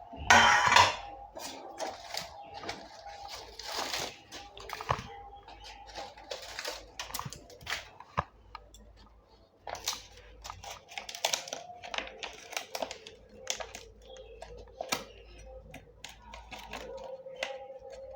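Kitchen handling of a metal plate, spatula and banana leaves: a louder clatter just after the start, then scattered clicks, scrapes and leaf rustles.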